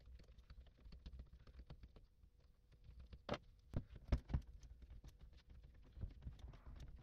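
Irregular faint clicks and knocks of a socket and extension worked on the end-cap bolt of a car starter motor being dismantled, with a few louder knocks between about three and four and a half seconds in.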